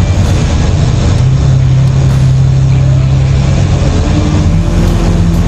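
Crane's diesel engine running under load, loud and steady, its note stepping up as it revs about four seconds in.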